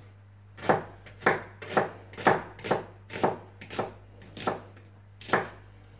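Kitchen knife slicing an onion into rings on a wooden cutting board, about two cuts a second, each one landing on the board with a sharp knock.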